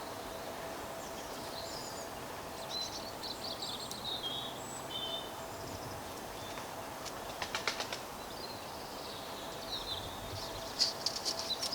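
Small birds chirping and calling in short, quick phrases over a steady outdoor background hiss, with two brief runs of sharp clicks, one about two-thirds of the way through and one near the end.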